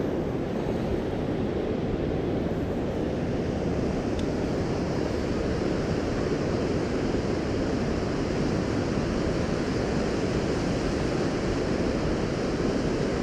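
Steady rush of water pouring over a low dam and churning through the foamy river below it.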